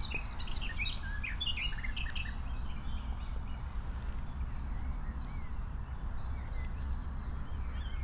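Small songbirds singing: scattered chirps in the first couple of seconds, then runs of rapid, high trills repeating through the rest, over a steady low background rumble.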